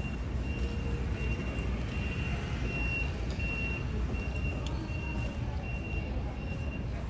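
Electric airport passenger cart's warning beeper: a single high beep repeating about one and a half times a second, over a steady low rumble of the terminal hall.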